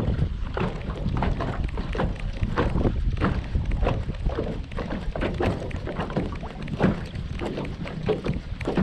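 A fishing lure being worked and reeled in: a run of short irregular knocks and splashes, several a second, over a steady wind rumble on the microphone.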